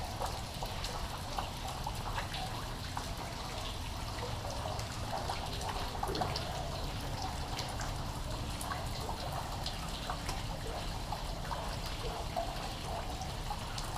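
Steady rain with water trickling and dripping, scattered small drops ticking irregularly throughout.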